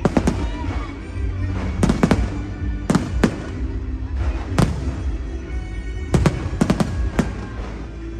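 Aerial fireworks bursting in a string of about a dozen sharp bangs at uneven intervals, some in quick clusters of two or three. Music from the show plays underneath.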